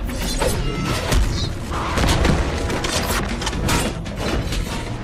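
Film fight sound effects: a rapid run of punches, knife strikes and impacts in close succession, over a steady low rumble.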